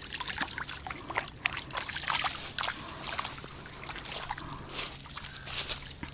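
Water splashing and trickling in irregular bursts as a freshly caught Caspian roach is put into a keepnet in shallow water at the bank.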